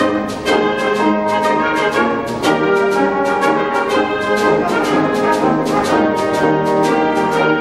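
A wind band of saxophones, trumpets, trombones and tubas plays a piece in full ensemble, with drum kit and electric bass keeping a steady beat.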